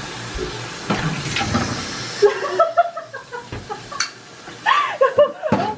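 Aerosol can of Silly String spraying with a steady hiss for about the first two and a half seconds, then loud, excited voices with a few sharp clicks.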